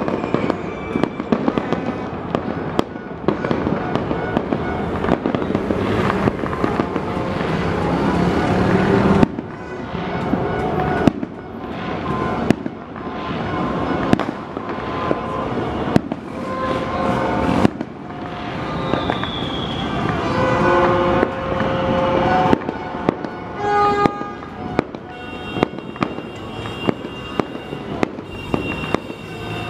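New Year fireworks and firecrackers going off all around: a dense, continuous crackle of many bursts with sharp bangs throughout. In the second half, short whistling tones ring out among the bangs.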